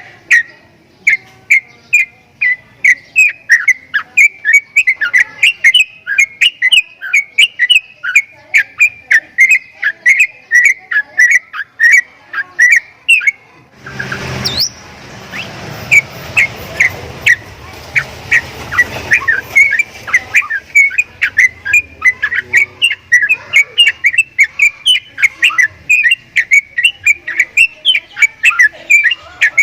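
Javan myna giving an unusual call: a long run of short, sharp whistled notes, about two a second, repeated without a break. About halfway through, a burst of rushing noise runs under the calls for several seconds.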